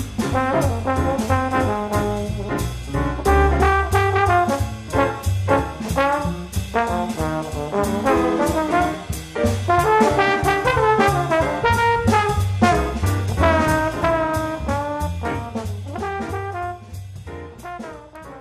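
Background music led by brass horns over a steady drum beat, fading out near the end.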